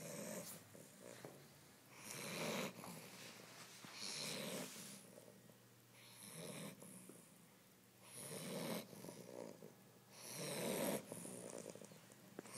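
A sleeping dog snoring, with a snore about every two seconds.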